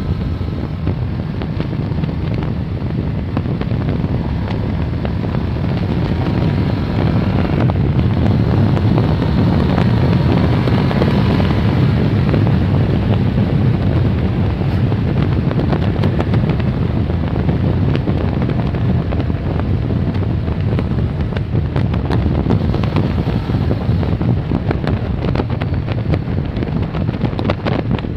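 Kawasaki ER-6n's parallel-twin engine running at road speed under heavy wind buffeting on the phone's microphone. The rumble grows louder about six seconds in.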